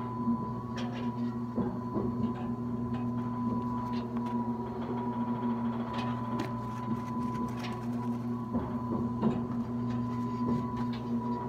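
Steady mechanical hum from the oil well's pumping equipment, with a few light knocks and clicks scattered through it.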